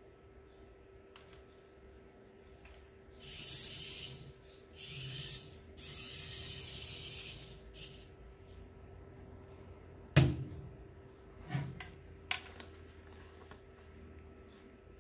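Tiny 1/100-scale RC car's miniature motor and gears whirring high in three bursts of a few seconds each as it drives. About ten seconds in comes a sharp knock, the loudest sound, followed by a few lighter clicks as the plastic FPV goggles are handled.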